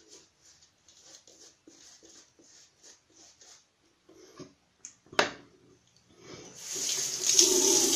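Shaving brush working lather on a cheek in quick, soft strokes, about three a second. A sharp click comes about five seconds in. Then a tap is turned on and water runs into the sink, the loudest sound, over the last two seconds.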